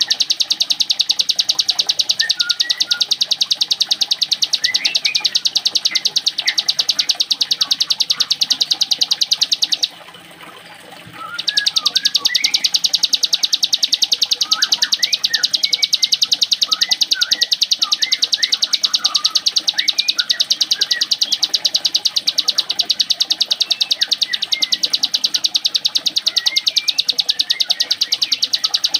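Ciblek gunung (prinia) songbird singing a fast, unbroken, mechanical-sounding trill like a sewing machine, pausing once for about a second and a half about ten seconds in. Short chirps are scattered beneath the trill.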